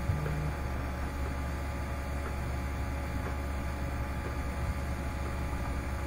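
Steady low hum with a faint even hiss behind it: the background noise of the recording during a pause in the talk.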